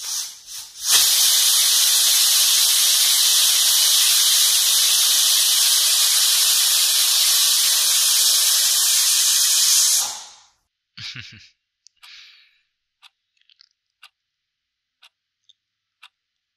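A loud, steady hiss like static noise, starting about a second in and cutting off suddenly about ten seconds in, followed by a few faint clicks.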